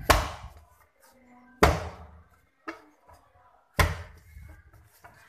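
A ball of kneaded pizza dough is thrown down hard into a stainless-steel parat three times, about two seconds apart, with a lighter knock between the second and third. Each heavy slap has a short ringing tail from the metal basin. This is slapping the dough repeatedly to make it soft.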